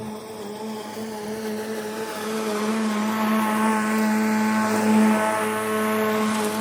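A lawn-care power tool's motor running steadily with a pitched hum, growing louder over the first few seconds and then holding level.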